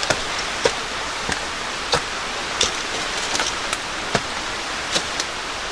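Footsteps climbing old outdoor steps, roughly one sharp, crunchy step every two-thirds of a second, over a steady rushing hiss.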